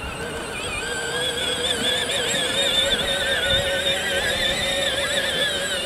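Battery-powered Peg-Perego John Deere Gator ride-on toy driving over grass: its electric drive motors and gearboxes whine steadily, the pitch wavering with the load, loudest as it passes close about three to four seconds in.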